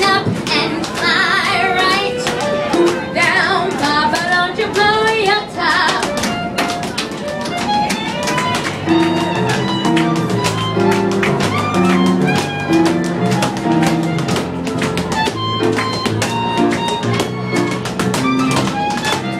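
Live small band playing a swing number with sharp tap-dance clicks over it. A wavering melody line runs for about the first six seconds, then steady held chords take over.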